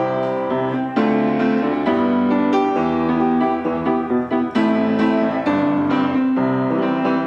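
Piano music playing, a steady flow of sustained notes and chords.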